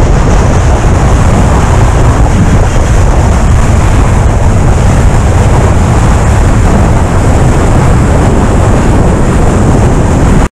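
Car driving at speed: a loud, steady rush of road and wind noise.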